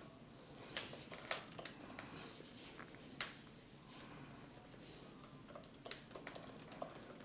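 Faint, irregular clicks and taps, with sharper ones about a second in and about three seconds in.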